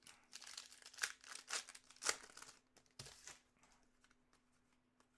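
Foil wrapper of a hockey card pack crinkling and tearing as it is handled, a quick run of crackles over the first three seconds or so, then only faint rustling.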